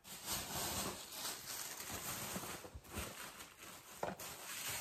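Rustling and crinkling of a plastic shopping bag as items are handled and taken out, with a light knock about four seconds in.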